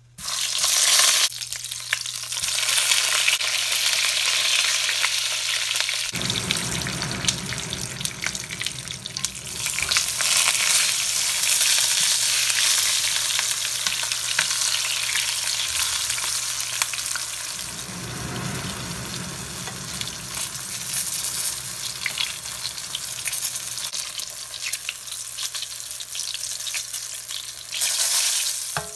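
Long purple eggplant halves sizzling as they shallow-fry in hot oil in a pan. The dense sizzle sets in abruptly at the start and keeps up steadily, with a deeper rumble joining it twice for a few seconds.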